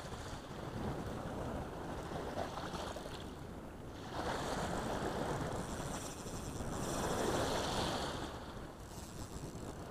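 Small waves washing onto a sandy beach, with wind on the microphone; the wash swells twice, about four seconds in and again about seven seconds in.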